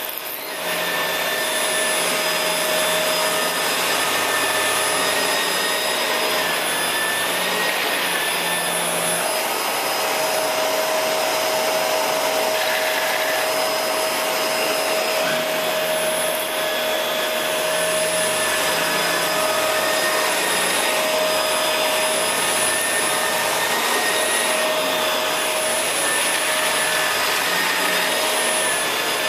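Shark Rotator upright vacuum cleaner running steadily, a dense rush of air with a steady whine over it, while vacuuming up spilled sequins and bits of styrofoam on a test floor.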